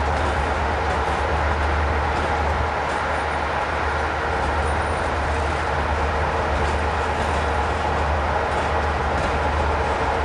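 CFR electric locomotive with passenger coaches at a station platform, giving a steady rumble and hum with faint scattered clicks.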